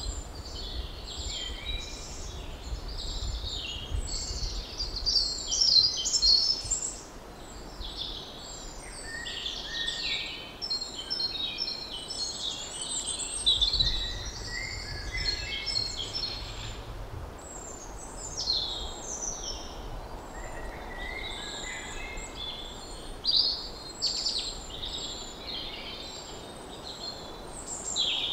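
Several songbirds singing at once in a dense chorus of short, overlapping phrases. A low rumble sits under them for the first several seconds and again for a few seconds about halfway through.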